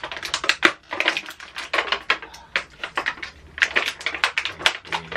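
Clear plastic action-figure packaging crinkling and crackling as it is handled and pulled apart: a dense run of sharp crackles with a few short pauses.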